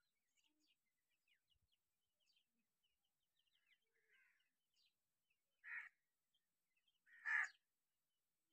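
Partridge chicks peeping softly with short, high chirps, broken by two louder, harsh calls about a second and a half apart near the end.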